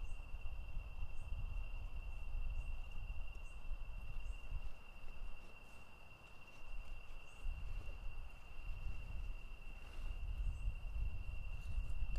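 Crickets trilling at night: one steady, high, unbroken trill with faint short chirps above it, over a low rumble that swells and dips.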